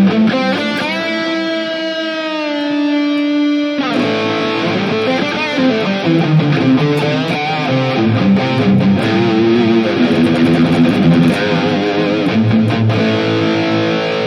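Electric guitar played through a NUX MG-30 modeling unit with its pan delay, a ping-pong stereo delay. A single held note bends slightly for about four seconds and cuts off, then a run of quicker notes follows.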